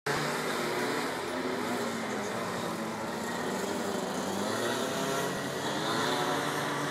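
Racing karts' two-stroke engines, among them a Rotax MiniMax, heard at a distance as they lap the track, several engine notes rising and falling as the karts accelerate out of corners and back off into them.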